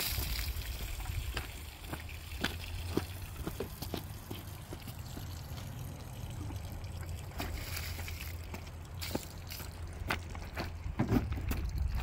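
River water flowing and trickling, with scattered small splashes and knocks and a louder run of splashes near the end.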